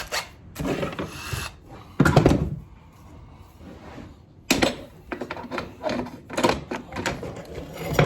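Irregular knocks, clicks and rustling of tools and parts being handled, with one loud low thump about two seconds in and a quick run of small knocks in the second half.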